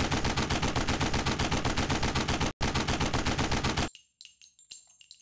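Rapid automatic gunfire, about ten shots a second, with a short break about two and a half seconds in, punching holes through steel plate. It stops about four seconds in and gives way to faint metallic tinkling.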